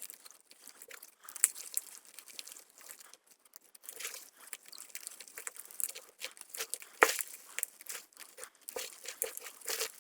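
Block of gym chalk being crushed, giving a run of dry, irregular crunches and crackles. The sharpest crack comes a little past the middle.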